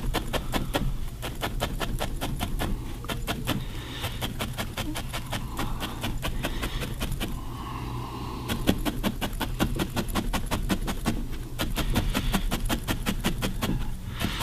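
A large felting needle stabbing rapidly and repeatedly into wool fibre, about five pokes a second, with a couple of brief pauses between runs.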